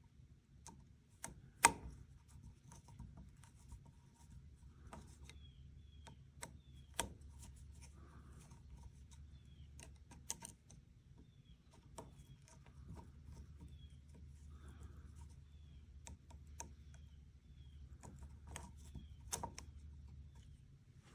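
Quiet hand work on a rifle's scope rings and bases: scattered clicks and taps of metal parts and tools, light rubbing, and a run of faint short squeaks about once a second through the middle, over a low steady hum.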